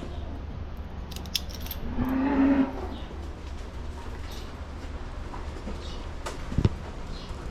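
Dairy cows coming into the barn: a short low moo about two seconds in, light metal clinking, and a couple of sharp knocks near the end, over a steady low hum.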